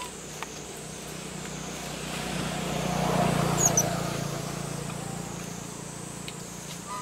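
A motor vehicle passing by: its engine hum swells to a peak about three seconds in, then fades away.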